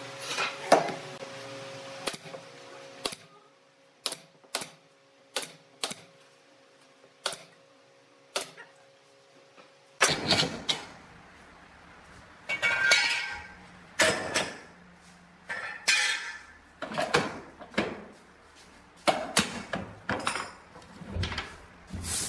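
Steel bar clamps being handled on a pine panel: a run of sharp single knocks, then, about ten seconds in, scraping and clattering as the clamps are slid off.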